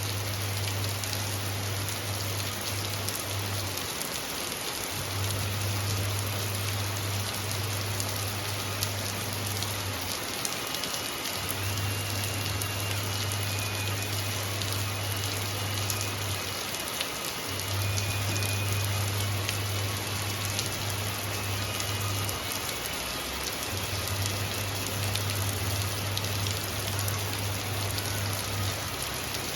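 Steady rain falling and pattering on surfaces. A low hum comes and goes in stretches of about five seconds, with short gaps between them.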